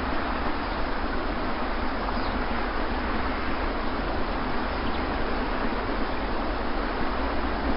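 Steady wash of sea surf: an even, unbroken rushing noise with no separate wave crashes.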